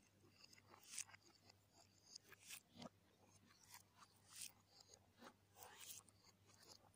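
Faint close-up eating sounds played backwards: scattered wet mouth smacks, chewing and the rustle of fingers working saucy noodles, over a low steady hum.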